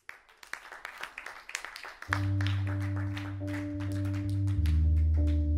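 A live jazz-fusion band beginning a piece: scattered sharp taps, then about two seconds in a low sustained bass note comes in and holds, moving to a lower note near the end, with the light taps going on over it.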